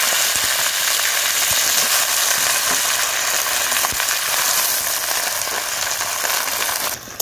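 Freshly washed, wet Malabar spinach (pui shak) sizzling loudly as handfuls are dropped into hot mustard oil in a kadai, the water on the leaves spitting in the oil. The sizzle drops away suddenly near the end.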